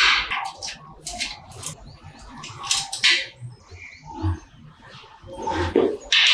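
Combination wrench working a bolt on a steel motorcycle frame: a series of short, irregular metallic scrapes and clicks, with a louder cluster near the end.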